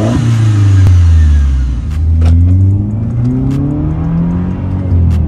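Mercedes-Benz E200's engine through a tuned exhaust with a vacuum-operated valve, accelerating under way: the pitch climbs, drops at a gear change, and climbs again in several pulls, with another drop about five seconds in.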